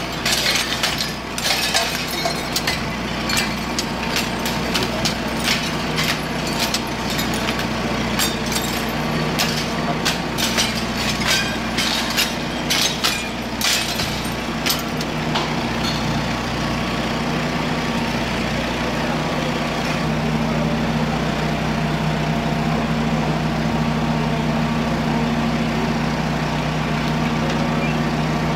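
A heavy truck engine running steadily, with a quick run of sharp cracks and breaking glass over roughly the first half that then stops, leaving the engine alone.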